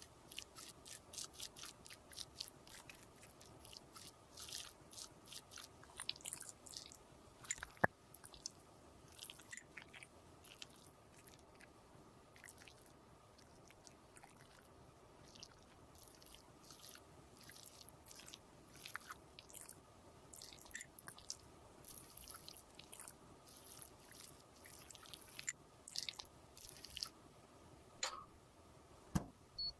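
Lipstick or makeup paste being worked by hand with a small tool: a run of faint, quick crackles and clicks, with a sharper click about eight seconds in.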